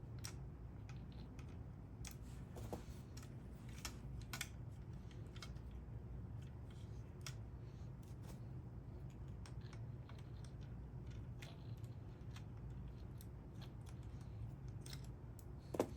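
Scattered light clicks and taps of plastic parts and wire connectors being handled in an opened Dyson V10 stick vacuum, over a low steady hum, with a sharper knock near the end.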